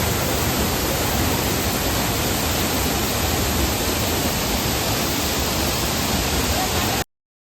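Waterfall: a steady, loud rush of falling water heard close up, cutting off suddenly near the end.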